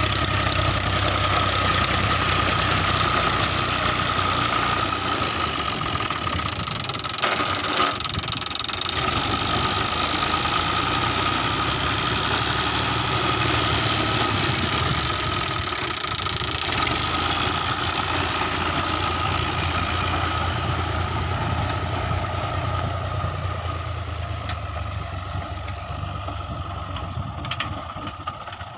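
New Holland Ghazi 65 hp tractor's diesel engine running steadily, growing fainter over the last several seconds.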